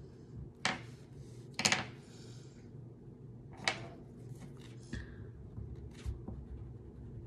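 Wax crayons clicking and clattering against each other and the tabletop as a hand picks through a loose pile of them: several separate sharp clicks, the loudest a double clack about a second and a half in, over a low steady room hum.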